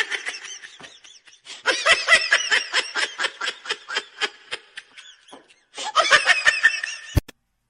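Laughter in a quick run of short pulses, about five a second, with a sharp click near the end.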